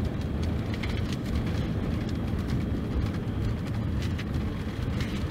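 Mercedes-Benz OC-500RF-1842 coach's rear-mounted six-cylinder diesel engine running under way, a steady deep drone with light scattered rattles.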